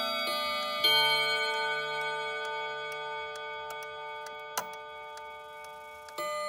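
Reguladora wall clock with its original Portuguese-made movement, chiming its tune: a couple of struck chime notes near the start, then a long note ringing and slowly fading, with a fresh note struck near the end. The pendulum's ticking runs quietly underneath.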